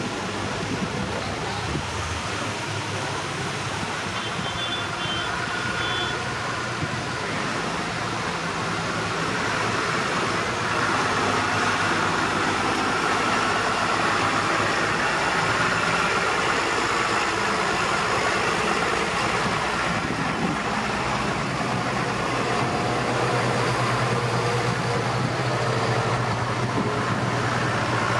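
A procession of tractors and a pickup driving past one after another, their diesel engines running steadily, louder from about a third of the way in. Near the end the low, steady drone of a John Deere tractor's engine grows as it comes by.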